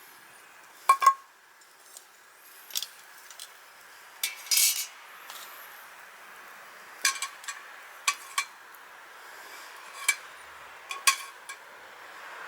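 Utensils clinking and tapping against dishes: a handful of separate sharp clinks, the loudest pair about a second in ringing briefly, with a short scraping rattle near the middle.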